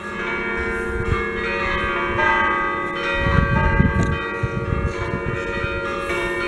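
Church bells of a five-bell peal cast by Achille Mazzola in 1951 ringing together, strokes overlapping into long, sustained ringing tones. A low rumble joins about halfway through.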